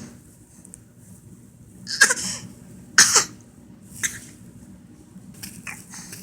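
A person faking a cough on purpose: two loud short coughs about a second apart, then a softer third one.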